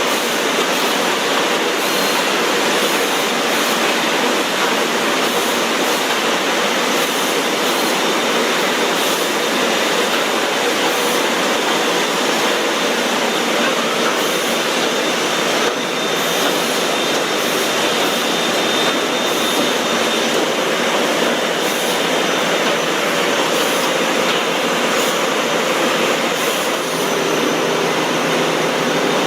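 Steady, even noise of running factory processing machinery, unchanging throughout, with faint steady whine tones under it.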